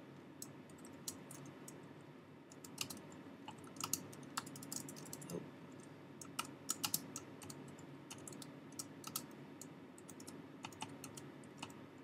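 Typing on a computer keyboard: irregular runs of keystroke clicks with short pauses between them, over a faint steady hum.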